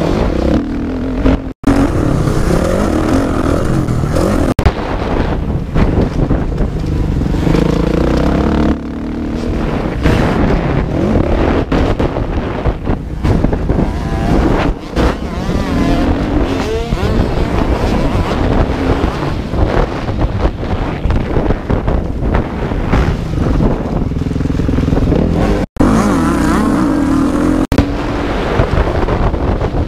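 Kawasaki KX450 four-stroke single-cylinder motocross engine under hard riding, its pitch rising and falling over and over as it revs through the gears, heard close up from a helmet camera. The sound cuts out for an instant twice, about a second and a half in and near the end.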